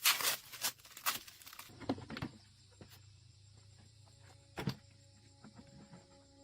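Scattered clicks and rustling handling noises, then a single knock, with soft background music fading in near the end.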